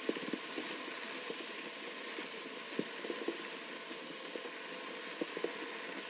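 Beef, broccoli and noodles sizzling in an enamelled cast-iron pan with a steady hiss, with scattered light clicks and scrapes as the food is stirred and tossed.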